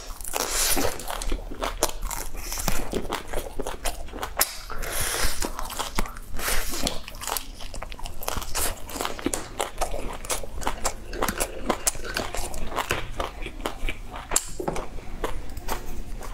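Close-miked biting and chewing of grilled meat pulled off wooden skewers: a dense, irregular run of sharp clicks and crunches.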